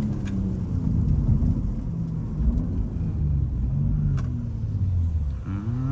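BMW M3 engine revving up and down repeatedly under hard driving, with a quick steep rise in revs near the end and a couple of sharp clicks.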